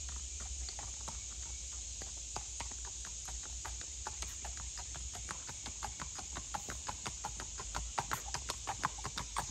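A ridden horse's hooves striking a paved road in a quick, evenly spaced clip-clop. The hoofbeats grow louder near the end as the horse comes closer.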